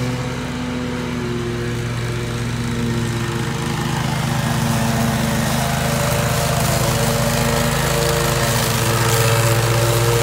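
Toro Grandstand stand-on mower running steadily under load, its engine and cutting deck mowing wet grass on a slope.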